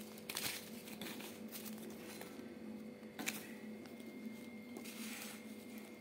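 Newspaper and paper notes crinkling and rustling in short bursts as parrots step on them and pick at them with their beaks, with a sharp click about three seconds in, over a steady low hum.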